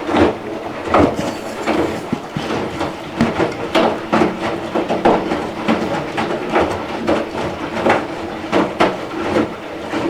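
Front-loading washing machine running, with a steady hum under many irregular knocks and clatters, several a second, as the drum turns.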